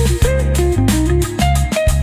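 Background music with a steady beat, led by guitar over a heavy bass line.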